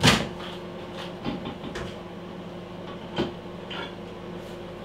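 Microwave oven door clicking open sharply, followed by a few lighter knocks and clicks as the cooked food pot is handled and taken out.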